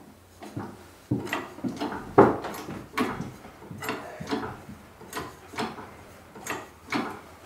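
Hydraulic tube bender's bottle jack being pumped by its hand lever: a steady series of short mechanical clacks, a little over two a second, as the ram forces the roll-cage tube into the bending die.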